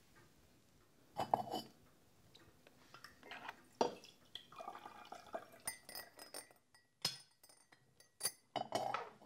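Tea pouring from a porcelain teapot into china cups, with several sharp clinks of china crockery.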